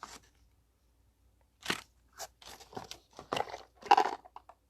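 Kit contents and packaging being handled and taken out of a box: a string of irregular crinkles, crunches and clicks, starting a little under two seconds in and loudest near the end.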